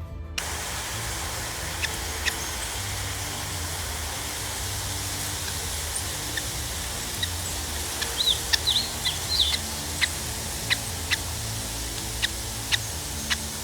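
A newly hatched bird chick giving a few short, high peeps about eight to nine and a half seconds in, over a steady hiss and low hum with scattered faint clicks.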